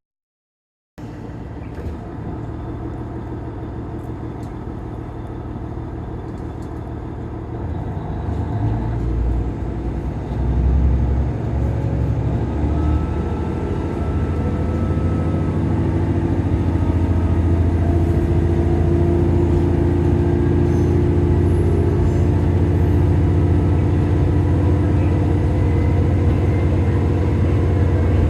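Onboard running noise of a KiHa 110 series diesel railcar: a steady rumble that grows louder about eight seconds in as the engine takes up power, then a loud, steady engine drone with the train under way.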